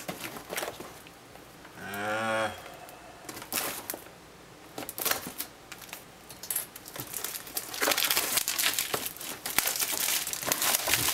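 Box packaging of an external hard drive enclosure being handled and pulled open: scattered clicks, knocks and crinkling, getting louder and denser over the last three seconds. A short hum of a voice about two seconds in.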